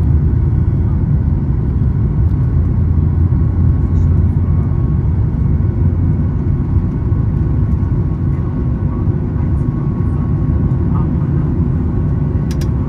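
Cabin noise of a Boeing 737 MAX 8 at takeoff thrust, heard from a window seat over the wing: the CFM LEAP-1B engines give a loud, steady rumble as the jet leaves the runway and climbs. A few faint clicks come near the end.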